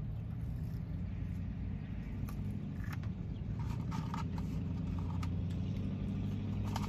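Steady low hum of an idling vehicle heard from inside the cabin, with a few light rustles from a cardboard fry carton.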